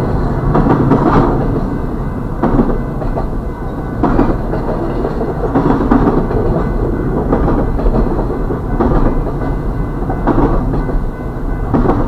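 Double-stack intermodal freight train passing over a grade crossing: a steady rumble of steel wheels on rail, with a clack of wheels over the rail joints about every one and a half seconds.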